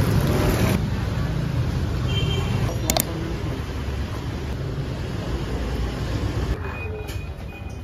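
Road traffic noise: a steady rumble of vehicles, with one sharp click about three seconds in.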